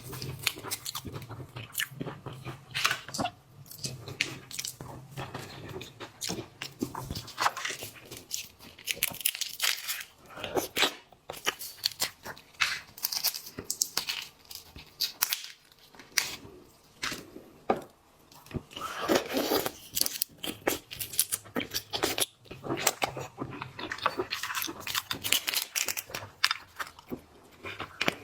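Close-miked eating of seafood: crunching, tearing and chewing in a dense run of sharp crackles and clicks.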